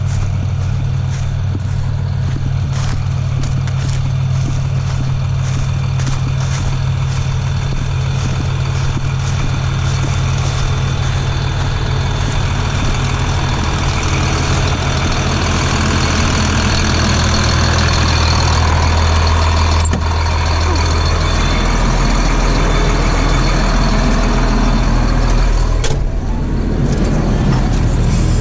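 Diesel engine of corn-harvest farm machinery running steadily, its tone deepening about twenty seconds in.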